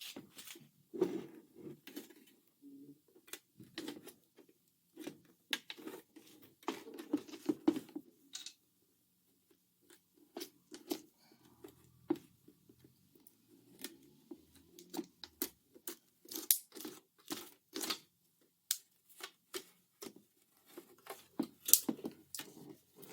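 Irregular sharp clicks and handling noise from the plastic parts of a Mercedes W215 headlight as they are worked apart where the lens is sealed to the housing with butyl.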